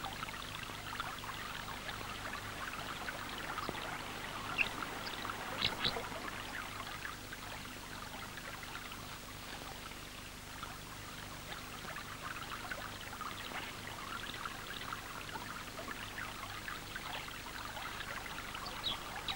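River water running and rippling, an even babble with a faint low steady hum beneath it and a few small ticks about five seconds in.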